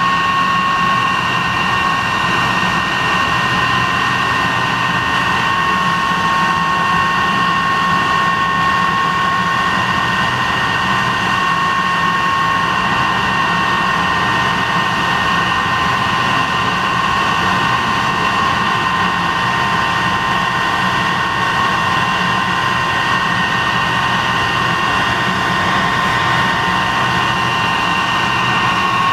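De Havilland Venom's de Havilland Ghost turbojet running steadily on a ground engine run: an even rush of jet noise with several high, steady whining tones over it.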